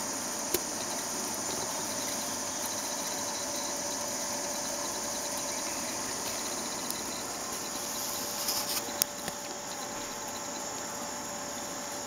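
Steady outdoor insect chorus, a continuous high-pitched chirring, with a few small clicks about half a second in and around nine seconds in.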